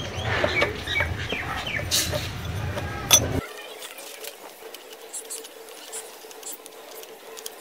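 Steel spanners clinking and scraping on a donkey water pump's gland nut as it is tightened down to press new gland rope packing around the shaft, with two sharper metallic clicks about two and three seconds in. After that there are only faint ticks.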